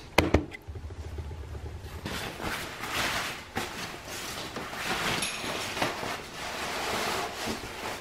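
A sharp knock about a quarter second in, then cloth curtains rustling unevenly as they are handled and pulled at the rod over a glass door.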